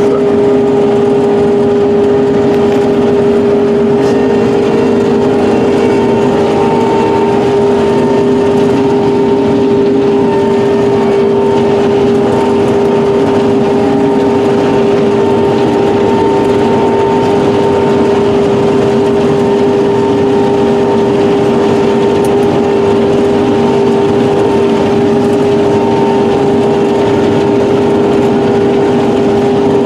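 Combine harvester running steadily, a loud constant machine hum that stays level throughout.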